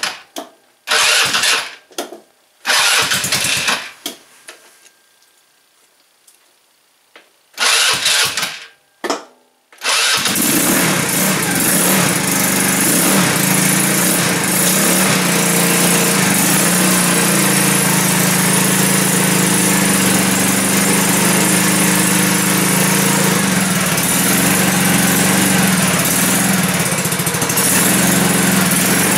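150cc go-kart engine being started: several short bursts with quiet gaps as it fires and dies, then it catches about ten seconds in and keeps running steadily. It is reluctant to idle, which the owner puts down to old fuel or needing a good run after sitting a year or two.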